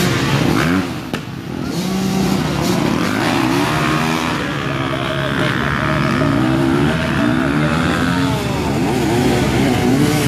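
Several motocross bikes' engines running at once, overlapping, each rising and falling in pitch as the riders blip the throttle.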